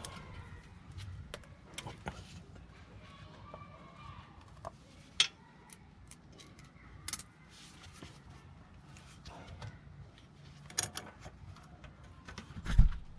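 Sporadic metallic clinks and knocks of tools and parts being handled, with one sharp click about five seconds in and a heavier thump near the end.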